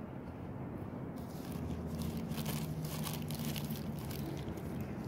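Paper and takeout wrappers rustling and crinkling as food is handled, with a run of soft crackles in the middle, over a steady low hum.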